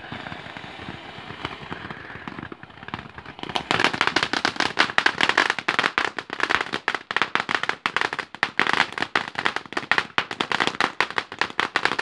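TNT 'Short Stack' fountain firework burning with a steady hiss of spraying sparks. About three and a half seconds in it breaks into a much louder, dense, rapid crackling that goes on.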